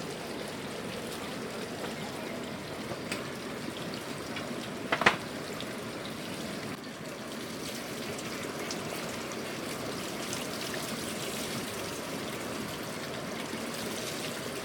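Steady sound of running, trickling water, with one sharp knock about five seconds in.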